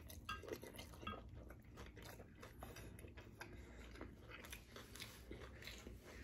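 Faint chewing of a mouthful of beef short rib taco, with small irregular wet mouth clicks.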